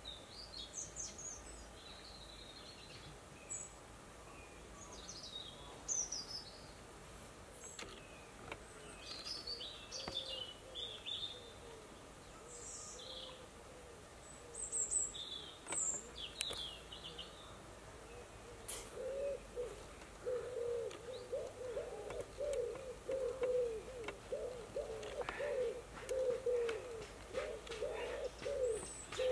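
Outdoor birdsong: scattered short, high chirps from small birds for the first half. From about two-thirds of the way in, a pigeon coos in a steady repeated series of low notes, with a few sharp clicks near the end.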